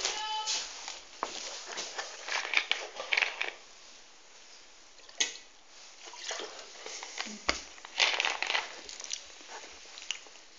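Close-up chewing and mouth noises of someone eating a hot chili pepper, with scattered crackly clicks and rustles.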